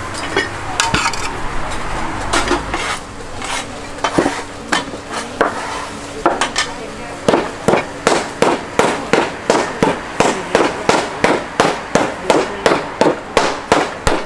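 Hammer pounding peanut candy (toob tub): irregular knocks at first, then steady strokes about twice a second from about halfway through.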